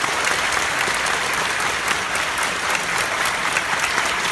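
Theatre audience clapping loudly and steadily, many hands together.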